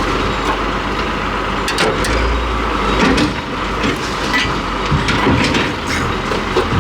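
An engine running steadily in the background, with scattered light clicks and knocks of hand tools on metal.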